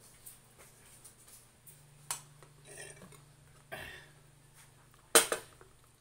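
Things being handled and set down on a table: a few sharp knocks and clatters with rustling between them, the loudest knock about five seconds in. A low steady hum runs underneath.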